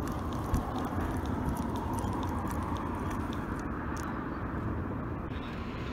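Steady low rumble of road traffic on the bridge, with a single knock about half a second in.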